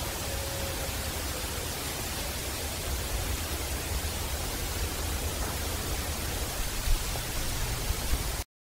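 Steady, heavy hiss of a boosted field recording with a low rumble underneath, with a faint thin tone briefly near the start and two short thumps near the end. The sound cuts off abruptly just before the end.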